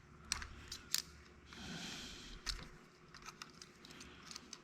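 Faint bench work on a battery connector's wires: a few sharp small clicks and snips of hand tools, with a soft hiss lasting about a second, starting about a second and a half in.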